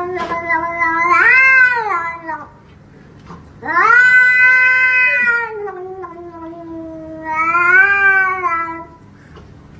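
Domestic cat yowling in long, drawn-out calls. One call ends a couple of seconds in; after a short pause a second, even longer call begins, dips in pitch and swells up again near the end.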